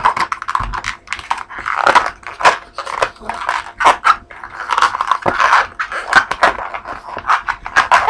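Latex modelling balloon squeaking and crackling as it is twisted and rubbed by hand: a quick, irregular run of short squeaks and creaks.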